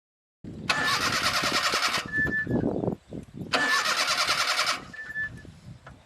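Car engine being cranked by its starter motor in two short attempts of just over a second each, with an even pulsing; the engine does not catch, as in a car that won't start.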